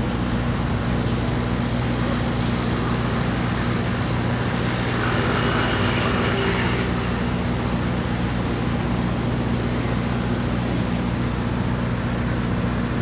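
NITEQ RRM-1500 road-rail tractor idling in place, a steady low hum that does not change, with road traffic noise swelling briefly around the middle.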